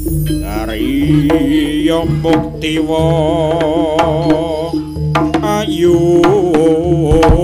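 Live jaranan music over loudspeakers: a wavering, sustained melody line over frequent kendang drum strokes and a steady low bass.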